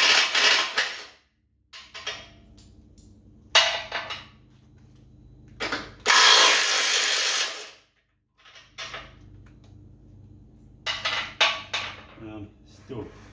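Cordless Ryobi impact wrench with a 15/16 socket undoing the nuts on the end of a car's upper control arm. It runs in several bursts with pauses between, the longest about two seconds near the middle and short ones near the end.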